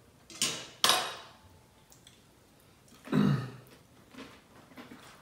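Eating at a table: two short clatters in the first second, then a short vocal sound falling in pitch about three seconds in. Otherwise only low room sound.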